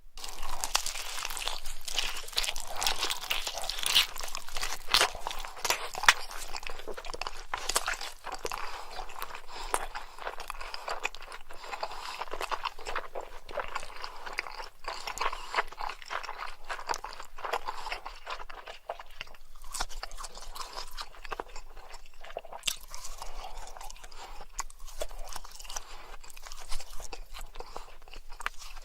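Close-miked chewing: crunchy food being bitten and chewed with a dense run of irregular crackly clicks and crunches, a little busier in the first few seconds.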